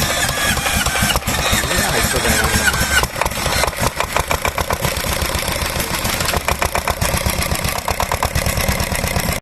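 Yanmar Diesel Type K2 engine being started: a high whine steps down in pitch over the first few seconds, then evenly spaced exhaust beats set in from about three seconds in as the engine fires.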